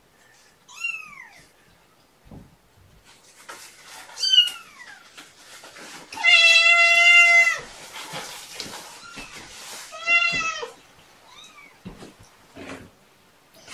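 Adult tabby cat meowing repeatedly: short calls that fall in pitch, one long steady meow about six seconds in that is the loudest, and another a few seconds later.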